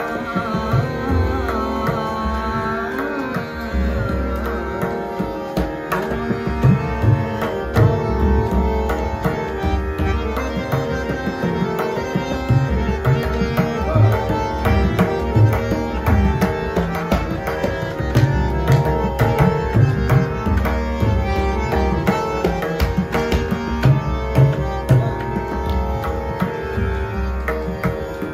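Harmonium and tabla playing Hindustani classical music. A dense tabla pattern of sharp strokes and deep bass strokes runs over the harmonium's held reed notes and runs. A singer's voice glides through a phrase in the first few seconds.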